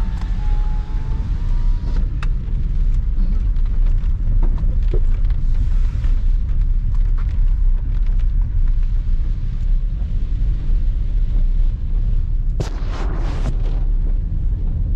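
Steady low rumble of road and wind noise inside a moving car's cabin, tyres running on a wet road. About thirteen seconds in comes a brief louder hiss.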